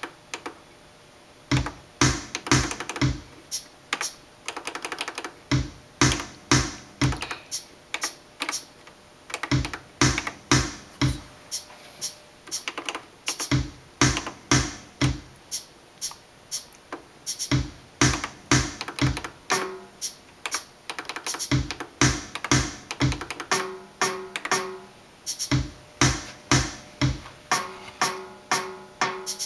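Roland Juno-Gi's built-in drum machine playing a looping two-measure rhythm pattern: a kick drum on each beat of the first measure, dropping out for the second measure, with hi-hat ticks being added in between. A short pitched tone sounds a few times near the end.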